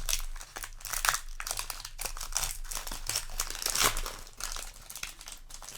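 Foil Yu-Gi-Oh! booster pack wrapper crinkling as it is handled and opened, a dense run of irregular crackles.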